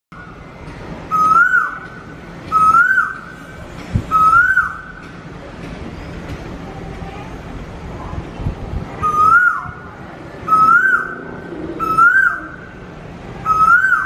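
A cuckoo calling: a single whistled note that rises and then falls, repeated about every second and a half, three times, then after a pause of about four seconds four more times.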